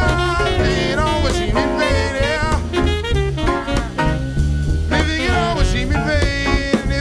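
Live jazz combo of saxophone, piano, bass and drums playing a swing ballad, with a pitched lead line bending over steady bass notes.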